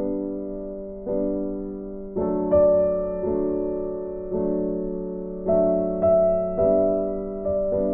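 Background music: soft piano chords struck about once a second, each note ringing and fading.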